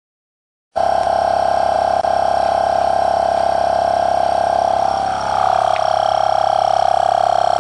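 Pittsburgh 12V direct-drive portable air compressor starting abruptly and running steadily, with a fast even pulsing. Its pitch and level dip briefly about five seconds in, then it runs on steadily.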